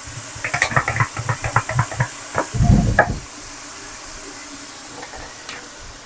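A quick run of knocks, about eight a second, from a sauce bottle shaken upside down over a wok, then a heavier thud, over the steady sizzle of diced vegetables frying on a high flame.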